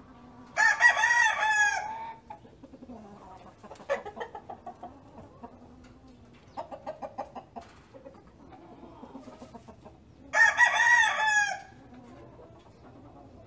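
Chickens: a rooster crows twice, once about half a second in and again about ten seconds in, each crow lasting about a second, with softer clucking between.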